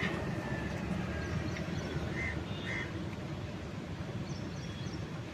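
Steady low rumble of outdoor traffic. Two short calls come about half a second apart about two seconds in, and a few faint high chirps come near the end.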